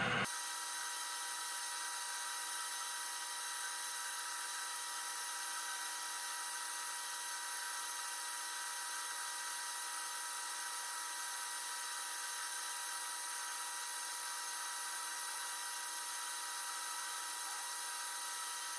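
Metal lathe running steadily with a thin, high-pitched whine that does not change, while it bores out a belt-sander drive wheel.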